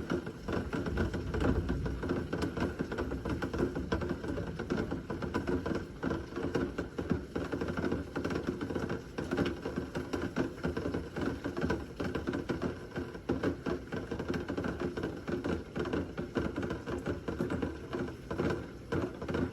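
Steady rain falling, a dense, irregular patter of drops hitting surfaces.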